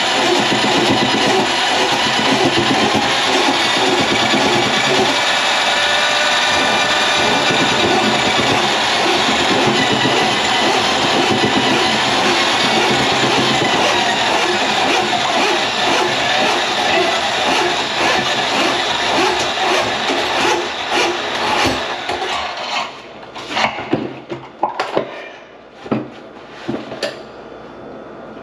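Motor-driven drain-cleaning machine running steadily, its pitch wavering a little, as a grease clog is cleared from a kitchen sink drain line. It stops about 22 seconds in, and several knocks and clatters follow.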